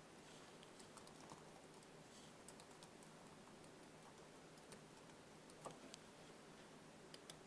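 Faint computer keyboard typing: scattered, irregular keystrokes as a username and password are entered.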